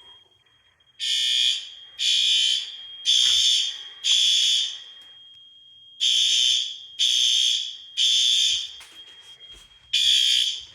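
Fire alarm horns sounding in loud blasts about one a second, grouped in threes and fours with short pauses, over a steady high-pitched tone. The system is in alarm after a heat detector was heated with a lighter.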